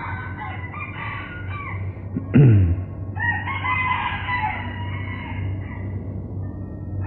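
Roosters crowing in the background, several drawn-out calls, over the steady low hum of an old tape recording. A short, low note falling in pitch about two and a half seconds in is the loudest moment.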